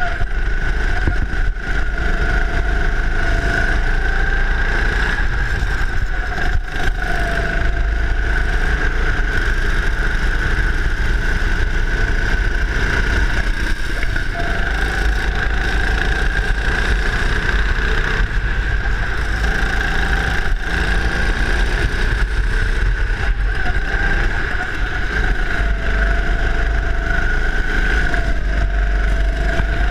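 Go-kart engine running continuously as the kart is driven through corners, its pitch rising and falling with throttle, over a steady low rumble.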